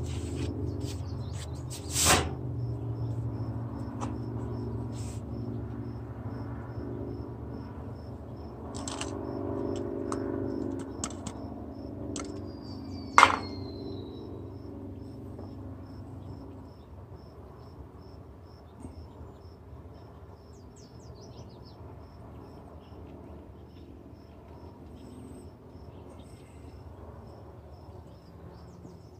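Outdoor ambience with a cricket chirping steadily and a low rumble that fades out after about 17 seconds. Over it come a few sharp knocks and clicks from a plant pot and seeds being handled on a metal patio table, the loudest about 2 and 13 seconds in.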